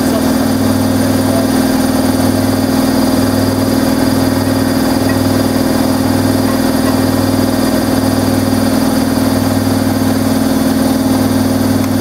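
Hoover Logic front-loading washing machine in a fast spin, its drum and motor giving a loud, steady hum. A lower hum swells and fades about once a second as the drum turns.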